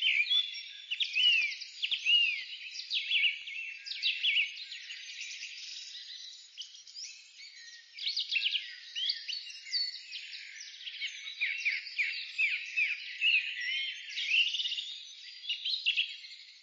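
Dawn chorus of many songbirds singing over one another: quick chirps, whistles and trills in a dense, high-pitched tangle that fades out near the end.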